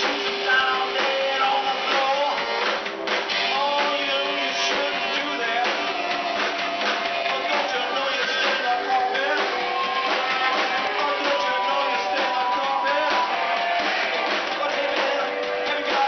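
A live band playing in a small room, with electric guitars and a drum kit. It is recorded thinly, with almost no bass.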